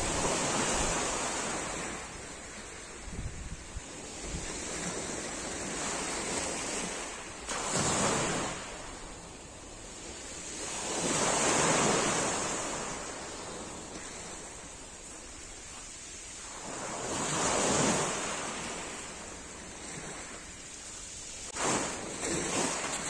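Sea waves breaking on a pebble beach and washing back, the surf swelling and fading in slow surges a few seconds apart.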